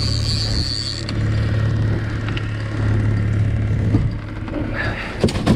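Boat's outboard motor running steadily at trolling speed, a constant low hum, with a few clicks near the end.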